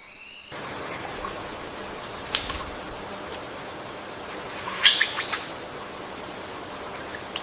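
Birds chirping over a steady background hiss, with a few faint short calls and two loud, sharp chirps about five seconds in.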